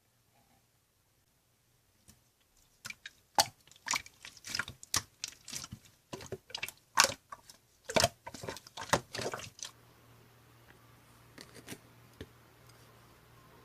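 Slime being squished and pressed by hand, giving a run of sharp wet, sticky pops and crackles for about seven seconds. A few faint clicks follow.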